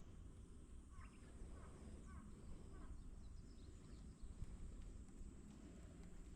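Near silence: faint outdoor ambience with a low rumble and a few faint bird chirps about one to three seconds in.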